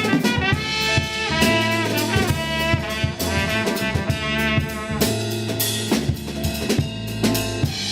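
Instrumental jazz-style music: a brass and saxophone melody over a drum kit and a low bass line.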